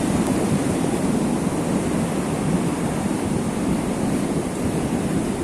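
Steady rush of a creek in flood, fast turbulent water running high past a damaged bridge.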